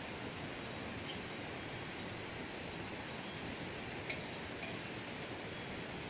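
Steady, even outdoor background hiss, with one short click about four seconds in.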